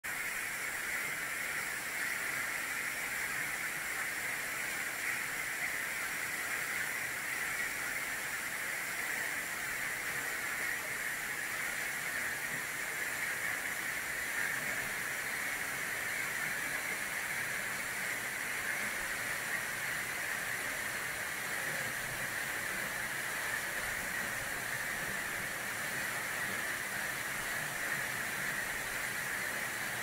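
Waterfall pouring down a rock face and splashing into its pool: a steady rush of falling water that never lets up.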